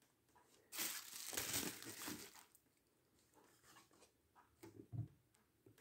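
Faint rustle lasting about two seconds, then a few light knocks near the end: hands moving and handling plastic figure stands on a wooden tabletop.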